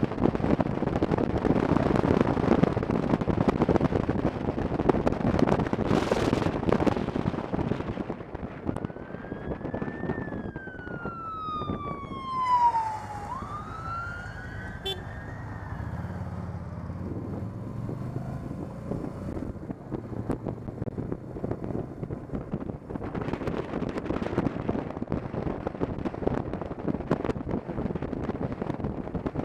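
Wind rushing over the microphone with motorcycle road noise. From about a third of the way in, a siren wails for several seconds, gliding up, sweeping steeply down, then rising and falling again. The wind noise builds back up near the end.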